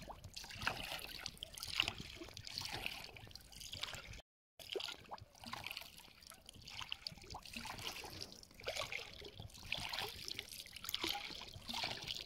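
Water trickling and lapping against the side of a small boat on calm water, an irregular patter of small splashes. The sound cuts out completely for a moment a little after four seconds in.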